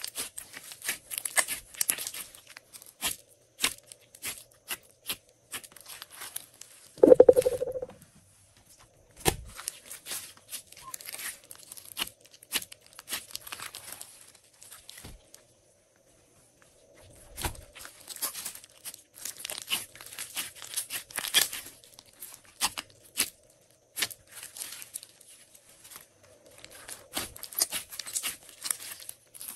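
Glossy slime being squeezed, folded and pressed by hand, crackling and clicking in dense runs as it is worked. There is one louder, lower squish about seven seconds in, and a short pause near the middle.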